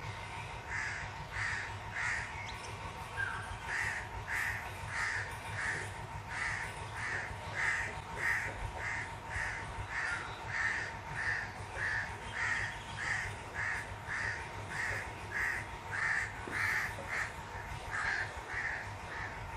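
A bird calling over and over in short, evenly spaced calls, about three every two seconds, with a faint steady tone underneath.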